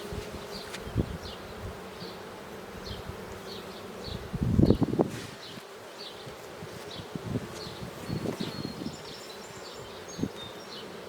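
Honeybees of a queenless colony buzzing steadily around the open hive. About four and a half seconds in there is a louder knock and scrape of hive parts being handled, with a few lighter knocks later.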